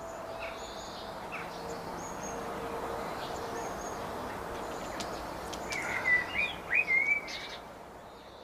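Songbirds chirping and calling, with a louder run of short whistled notes about six to seven seconds in, over a faint steady hum and soft background noise.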